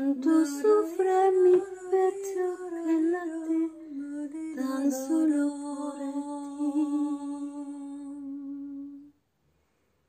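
A woman humming a slow, wordless tune in short phrases, ending on one long held note that stops about nine seconds in.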